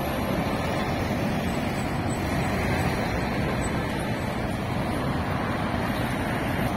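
Steady city traffic noise: cars and vans passing on a busy multi-lane street.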